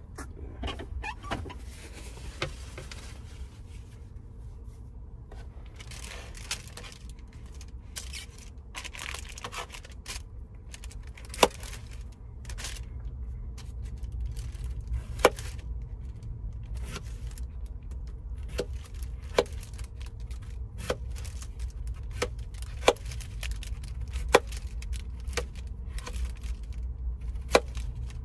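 Handling noises over a steady low hum: bursts of rustling in the first ten seconds, then sharp knocks and clicks about every one to two seconds.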